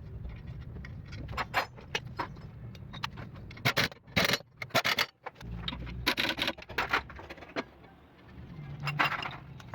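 Irregular metallic clinks, knocks and scrapes of tools and car parts being worked on, over a low steady hum.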